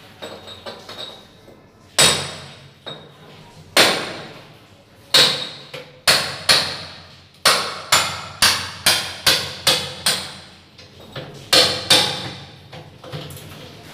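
Hand hammer striking hard at the base of a tiled bathroom wall: a few light taps, then sharp ringing blows, spaced out at first, then a quick run of about eight at two or three a second, and two more near the end.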